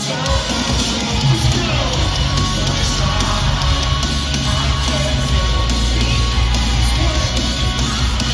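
Live rock band playing loudly in an arena, heard from high in the stands. Heavy drums and bass kick in right at the start.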